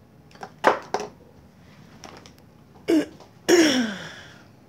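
A person coughing: two short coughs about a second in, then two louder ones near the end, the last drawn out and falling in pitch.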